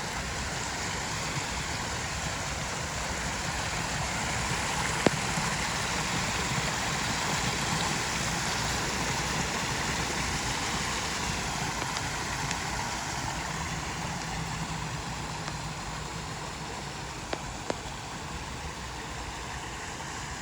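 Water pouring and splashing steadily down a garden waterfall and its cascades into ponds, a continuous rushing. A few sharp clicks stand out, about five seconds in and twice near the end.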